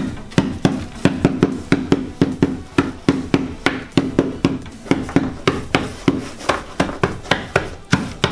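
Meat tenderizing mallet pounding Oreo cookies on a wooden table, steady repeated blows about three a second, crushing the cookies into crumbs.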